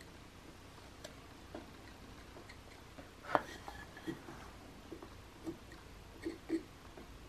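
Small carving knife whittling a basswood figure: soft scattered snicks of the blade paring the wood, one louder cut about three and a half seconds in, then a run of quicker short cuts toward the end.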